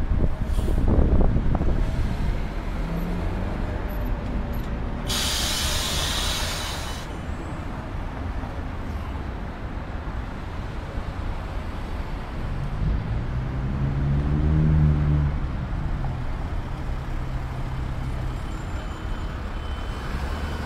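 Articulated city bus pulling away from a stop, followed about five seconds in by a two-second burst of compressed-air hiss from bus air brakes. A second articulated bus then approaches, its drive note rising and falling, over steady street traffic.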